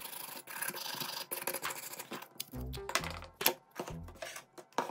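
Background music with a repeating bass beat. Light clicks and taps come from a bare phone circuit board being handled on a desk.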